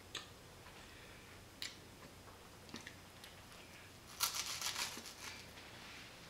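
Crisp rice wafer being chewed: a few faint clicks, then about four seconds in a short burst of crunching lasting under a second.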